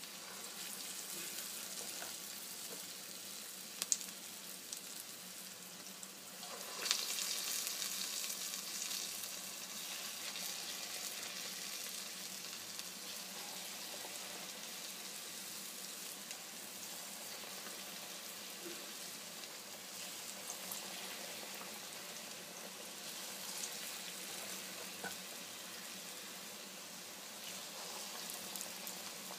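Urad dal bhallas deep-frying in hot oil in a kadhai: a steady sizzle that grows louder about seven seconds in.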